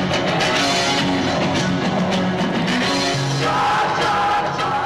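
Rock music, loud and steady, running under the video.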